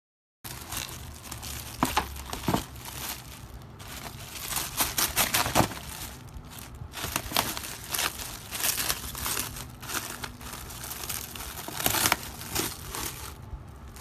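Crinkling and rustling of packaging being handled, with sharp irregular crackles throughout; it starts abruptly about half a second in.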